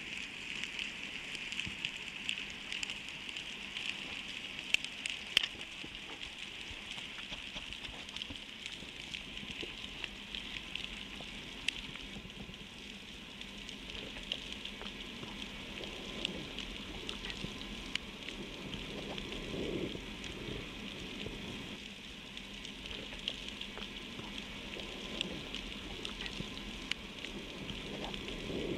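Underwater reef ambience: a steady crackling hiss full of scattered sharp clicks, with a couple of louder clicks about five seconds in.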